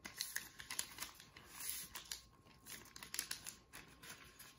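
A sheet of lined notebook paper being folded and creased by hand: faint, irregular rustling with small crisp clicks and scrapes as the folds are pressed flat.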